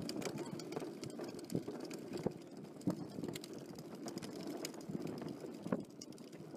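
Ride noise of a vehicle moving along a road: a steady rumble with frequent irregular clicks and knocks of things rattling.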